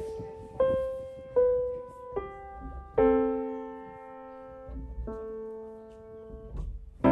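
Background music: a slow piano line, single notes struck about one every second and left to ring out and fade, with a fuller chord about three seconds in.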